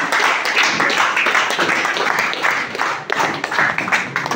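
A room full of people clapping together in a steady beat, about three claps a second.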